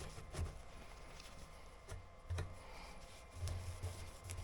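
Faint handling noise from small motorcycle fuel-pump parts being worked by hand: a few light knocks and clicks with some rubbing, more of them near the end.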